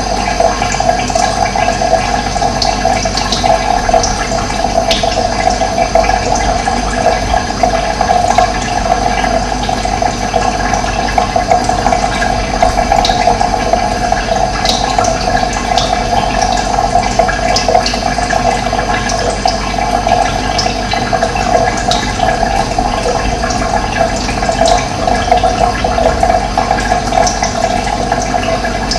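Running water flowing steadily, with short high bird chirps scattered throughout.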